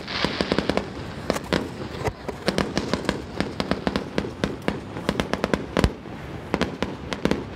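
Aerial fireworks crackling: a rapid, irregular string of small sharp bangs and pops from bursting shells, with a brief hiss at the start and one heavier boom about six seconds in.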